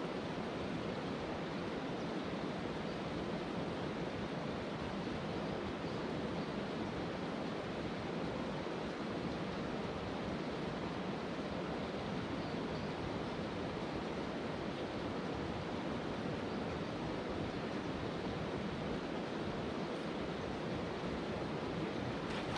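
Steady rushing of a shallow mountain river running over stones.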